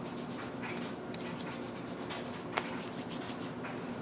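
Quiet rubbing and handling noises from hands working on wet paper, with a few light clicks.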